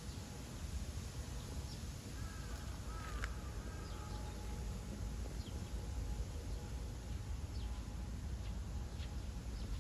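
Outdoor ambience: a steady low rumble with scattered faint bird chirps and one brief bird call about two to four seconds in.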